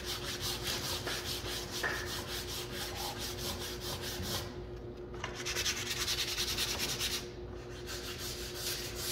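Sandpaper rubbed back and forth by hand in the crevice of a stained wood cabinet door: a quick run of rasping strokes that pauses briefly about four and a half and seven seconds in. It scuffs off built-up grease and the clear coat so the primer will adhere.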